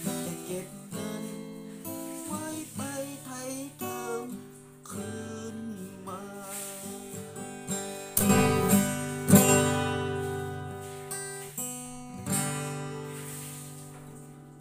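Solo acoustic guitar played as the instrumental close of a song. Quick picked single-note runs come first, then loud strummed chords at about eight and nine seconds and another a few seconds later. The last chord rings out and fades away near the end.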